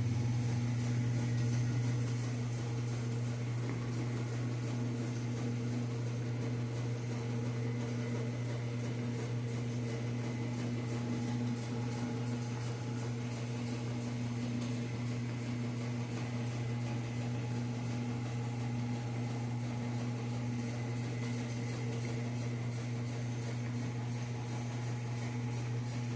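Washing machines running together: a steady electric-motor hum that holds even throughout.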